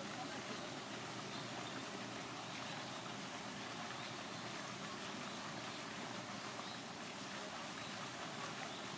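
Steady, even rushing noise with no distinct events and no change in level.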